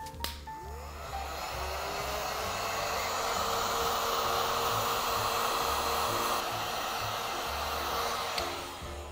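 Electric heat gun blowing hot air steadily to shrink plastic film around a bath bomb. Its pitch rises as it spins up at the start, and it cuts off about a second before the end.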